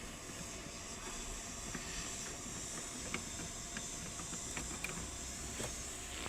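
A few faint, scattered clicks of a screwdriver working the screws of a car's steering column cover, over a steady background hiss.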